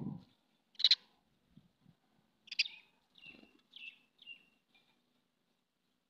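House sparrows chirping: one loud chirp about a second in, another at two and a half seconds, then a quick run of four shorter chirps.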